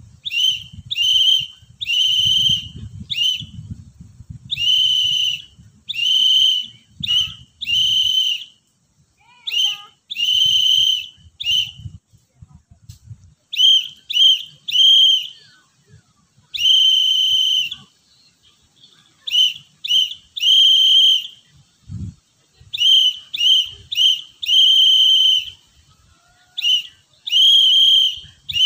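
Scout whistle blown in Morse code: a series of short and long blasts at one steady high pitch, grouped letter by letter with pauses between the groups.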